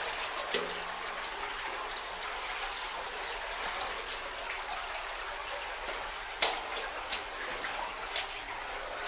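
Water sloshing and splashing as someone wades through knee-deep water along a flooded mine adit, with a few sharper splashes from footsteps, the loudest about two thirds of the way through.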